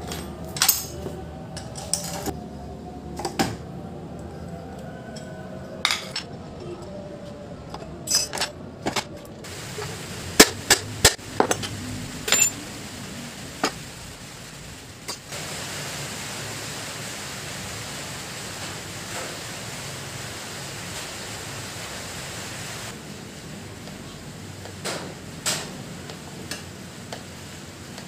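Sharp metallic clinks and knocks from the parts of an Aqua washing machine gearbox being handled and taken apart, most of them in the first half and a couple more near the end, over a steady hiss.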